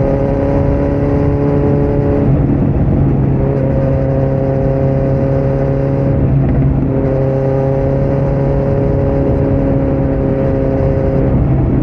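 2018 Kawasaki Z900's inline-four engine through a Yoshimura muffler and Delkevic headers with no dB killer, running loud under steady throttle while riding. Its pitch climbs slowly, with brief breaks about two, six and eleven seconds in.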